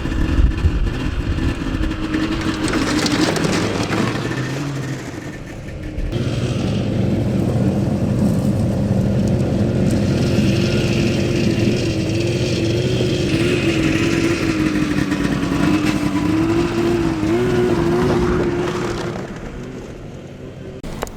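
Motor vehicle engine running at a steady speed. Its sound changes abruptly about six seconds in and dies away near the end.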